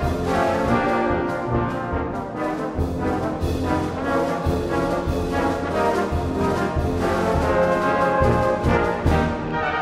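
Background music played on brass instruments, with a steady pulsing beat.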